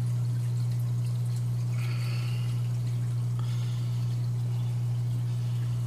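Running saltwater reef aquarium: water trickling and splashing steadily over a constant low hum from the tank's equipment.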